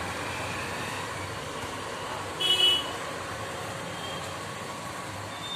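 Steady background traffic noise, with one short, high-pitched vehicle horn toot about halfway through.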